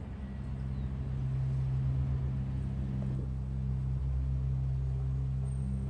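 A steady low hum made of several evenly spaced low pitches, growing a little louder over the first second or two and then holding.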